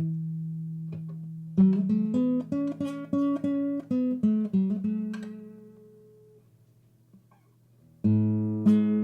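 Acoustic guitar music: a held low note, then a quick run of plucked notes that dies away, and a fresh chord struck near the end.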